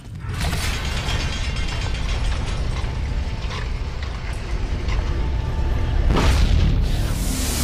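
Cartoon sound effect of a heavy rock door grinding and sliding open: continuous mechanical ratcheting and rumbling, with a whoosh about six seconds in and another near the end.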